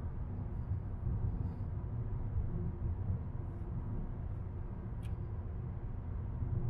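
Car driving along a road: a steady low rumble of tyre, road and engine noise, with a faint sharp click about five seconds in.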